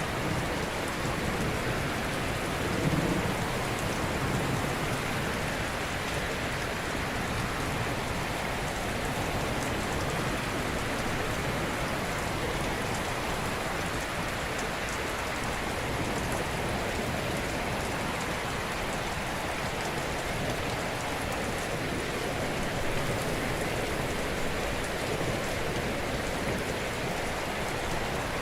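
Ocean surf washing steadily in an even hiss, with a low swell as a wave breaks about three seconds in.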